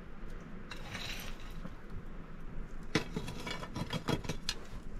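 Metal spatula scraping and clinking against a pan set into a clay stove: a brief scrape about a second in, then several sharp knocks and scrapes from about three seconds in.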